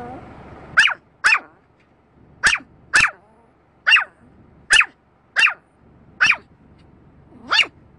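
A Pomeranian yapping, about nine sharp, high-pitched barks at uneven intervals, several coming in quick pairs.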